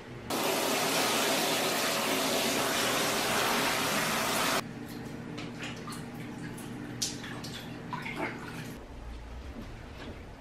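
Water running steadily and hard for about four seconds, stopping abruptly. Then quieter small splashes and sloshing as hands press fabric down into a basin of soaking water.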